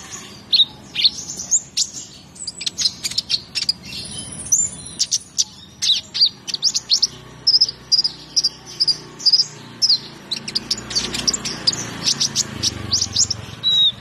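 Male sunbird singing: a fast, continuous run of high-pitched chirps and sharp, quick down-slurred notes.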